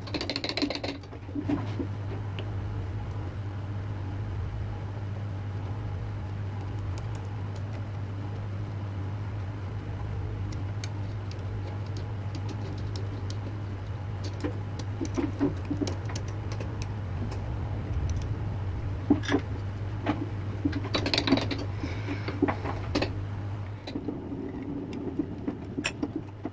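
A machine-tool electric motor runs with a steady low hum, with scattered light metallic clicks and taps over it; the hum stops near the end.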